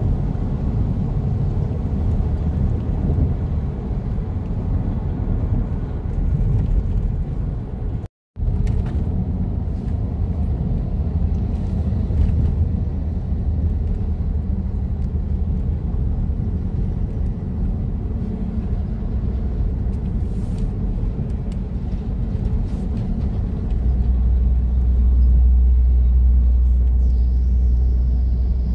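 Steady low road and engine rumble inside a moving Toyota Kijang Innova Reborn at highway speed. The audio cuts out briefly about eight seconds in, and the low drone grows louder near the end.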